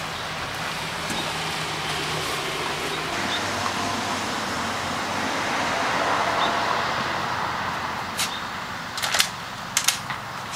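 A vehicle passing on the street, its tyre and engine noise swelling and then fading. Near the end come a few sharp clicks and knocks.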